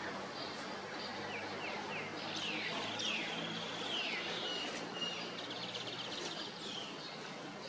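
Birds calling outdoors: a run of short, falling chirps, then a fast trill, over a steady background hiss.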